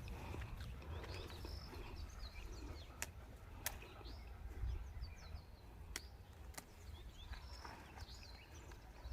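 Small birds chirping with short, high calls, over a low rumble, with a few sharp clicks.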